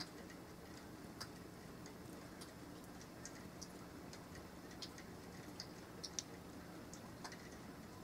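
Faint, irregular light ticks of sleet and wet snow striking nearby surfaces, a couple each second, over a steady low hum.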